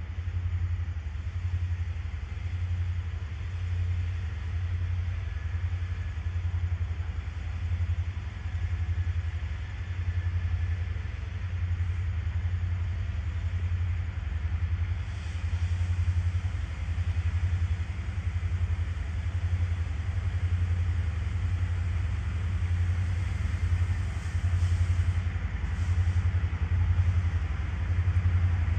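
Diesel-electric freight locomotive approaching slowly, its engine a steady low rumble.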